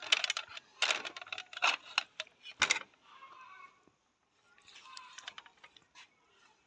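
Kitchen knife slicing cuts into marinated chicken pieces threaded on flat metal skewers, the blade clinking against the skewers in a string of sharp metallic clicks. The clicks are thickest in the first three seconds, then fainter.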